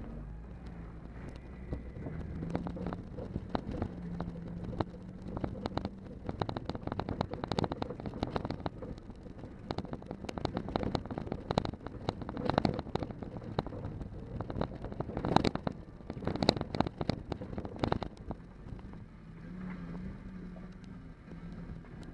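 Vehicle engine running, heard from inside the cabin, with a dense run of knocks and clatters as the vehicle is driven hard over rough, wet gravel ground. The jolting starts about two seconds in and is heaviest around the middle. It eases off near the end, leaving the engine running steadily.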